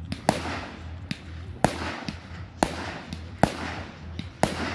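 Aerial firework shells bursting overhead: about six sharp bangs, roughly one a second, some louder than others, each trailing off in a fading hiss.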